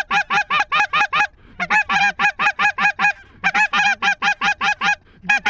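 Loud goose honking in quick runs of clucks, about seven a second, each run lasting a second or two with short breaks between runs.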